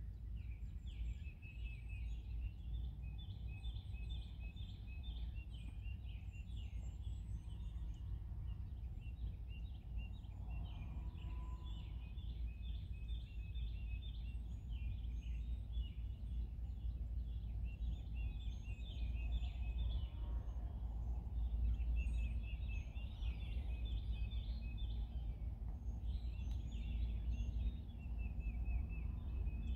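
Dawn birdsong: rapid trilling songs repeated over and over, with thinner high chirps, over a low steady rumble.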